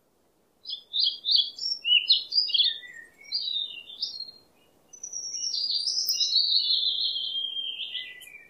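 Songbird singing: a run of quick high chirps for about three and a half seconds, a short pause, then one longer warbling phrase.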